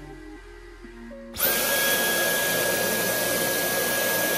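Dyson Cyclone V10 cordless stick vacuum switched on about a second and a half in, its motor running steadily with a whine over rushing air.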